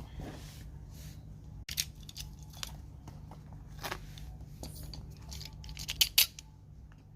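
Packaging being cut and torn open, with irregular sharp snips and crackles of plastic and tape; the loudest pair comes about six seconds in. A steady low hum runs underneath.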